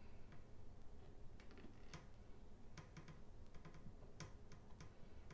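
Faint, scattered light clicks and taps, about ten of them starting a second and a half in, from home-brewing equipment being handled while a sample is drawn from the fermenting bucket for a hydrometer reading.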